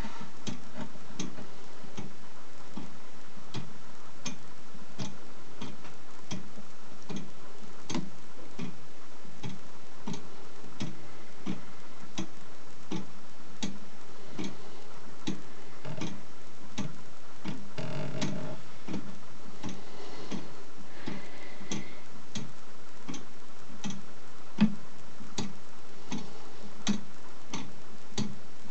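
Verge-and-foliot escapement of a Meccano-built Nuremberg lantern clock ticking steadily, about two sharp ticks a second, as the crown wheel escapes against the rocking weighted foliot.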